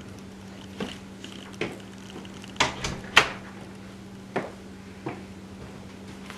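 Scattered light clicks and knocks of kitchen utensils and dishes being handled, about seven over several seconds, the loudest a little after three seconds in, over a steady low hum.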